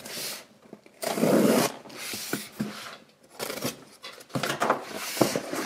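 A utility knife slitting the packing tape on a cardboard box, with the cardboard flaps being handled and pulled open: a series of short scraping, rasping strokes with brief pauses between them.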